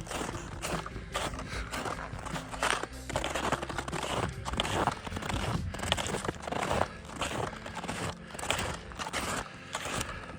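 Hiking boots crunching on a snowy trail at a steady walking pace, about two steps a second, with music playing underneath.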